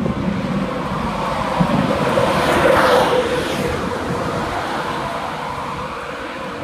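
InterCity 225 train (Mark 4 coaches and Driving Van Trailer) rolling out of a station: a continuous rush of wheel and rail noise over a steady hum. It swells to its loudest about three seconds in, then slowly fades as the train draws away.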